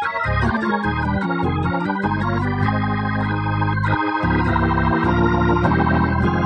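Live church worship music: held keyboard chords in an organ sound over a bass line that moves in steps, with light cymbal ticks on top.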